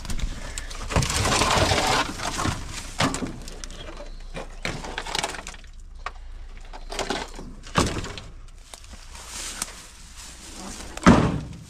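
Irregular cracking and crunching, as of brittle material breaking, with one sharp, loud crack about eleven seconds in.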